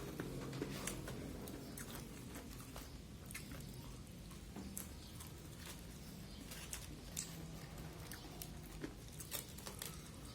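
A person chewing and eating smashed fried chicken close to the microphone, with many small scattered mouth clicks and smacks over a low steady hum.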